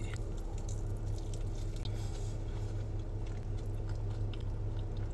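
A person chewing a mouthful of chilaquiles, takeout tortilla chips that have gone a little soggy under egg, cheese and salsa, with small irregular wet crunches. A steady low hum of the car cabin runs underneath.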